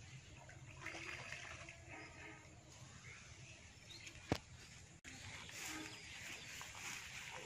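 Quiet rural outdoor ambience: birds chirping and plants rustling, with one sharp click about four seconds in.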